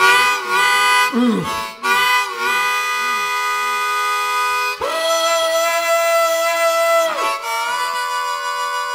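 Solo blues harmonica playing a train imitation: rhythmic chugging chords, two to three a second, then a long held chord from about five seconds in to about seven, bent at its start and end, before the chugging resumes.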